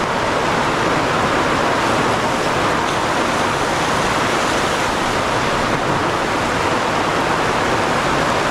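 Heavy rain pouring down in a sudden cloudburst, a loud, steady hiss.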